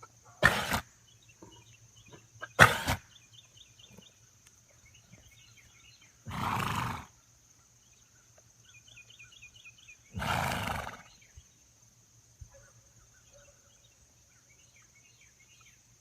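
Horse coughing with deep, man-like coughs: two sharp, loud coughs about two seconds apart, then two longer, breathier ones several seconds apart.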